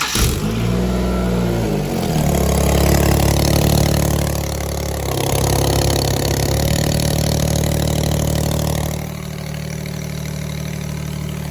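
Infiniti G37S's 3.7-litre V6 starting up. It revs up and back down briefly, then runs at a fast idle that drops to a lower idle about nine seconds in. An exhaust leak at the test-pipe gaskets makes it sound horrible.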